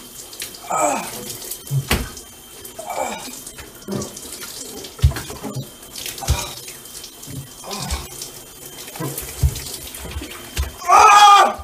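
Shower water running into a bathtub, with a dull thud every second or so. Several short cries fall in pitch, and the loudest is a yell near the end.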